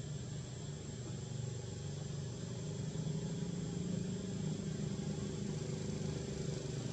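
Low, steady engine rumble of a motor vehicle that grows louder about halfway through, with a thin, steady high-pitched tone above it.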